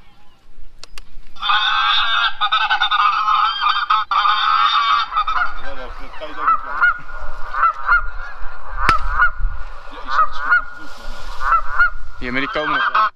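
Geese honking: a dense chorus of many goose calls starts abruptly about a second and a half in, then thins into separate, repeated honks.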